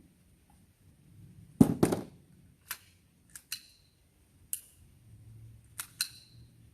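CO2 air pistol firing: two sharp shots close together, then several fainter sharp metallic clicks. This comes from a pistol whose magazine the shooter thinks is faulty after a CO2 cartridge let out all its gas.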